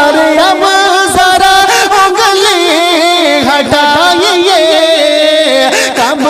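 Naat music between sung lines: a wordless melody of long, wavering held notes, with several pitched lines sounding together.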